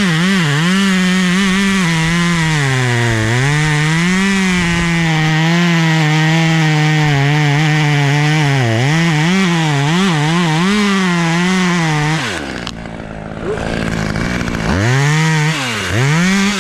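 Two-stroke chainsaw running at high revs cutting wood, its pitch dipping and recovering as the chain bites. About twelve seconds in it drops to idle, then is revved up and down several times near the end.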